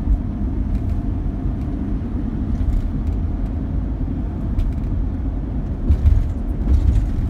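Road and engine noise inside a moving Sprinter passenger van's cabin: a steady low rumble, with a few heavier low thumps near the end.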